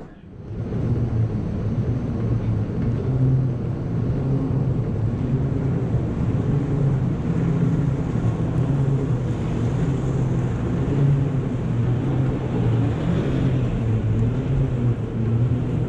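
Steady low rumble and hum of a moving walkway in motion, heard while riding it, with the echoing noise of a long airport tunnel.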